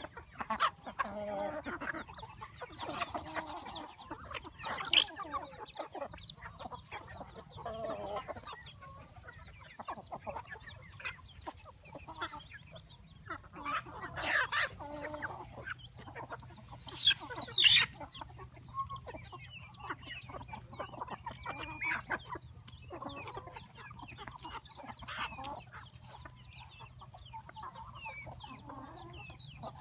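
A flock of chickens clucking and calling without pause, with a few louder calls standing out, the loudest a little past the middle.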